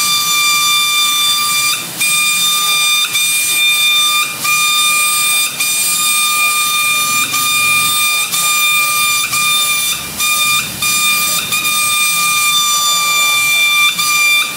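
Air-fed paint spray gun running with a steady high whistle over its hiss. The air cuts out briefly about a dozen times as the trigger is let off between passes.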